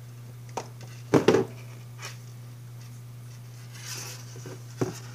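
A few small clicks and a louder double knock about a second in, from hand tools stripping a very fine wire. A steady low hum runs underneath.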